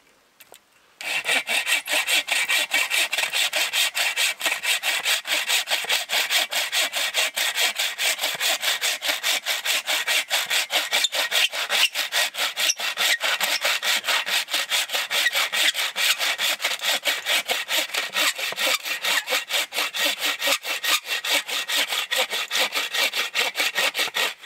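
Hand saw cutting through a firewood log with rapid, even back-and-forth strokes, starting about a second in.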